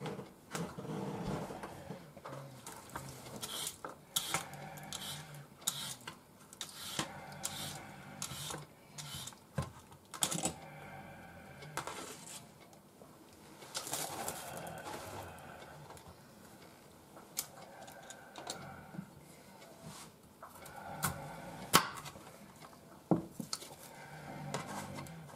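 Kitchen knife peeling and cutting a daikon radish on a wooden cutting board: scraping strokes and irregular clicks and knocks of the blade, with a couple of sharper knocks near the end.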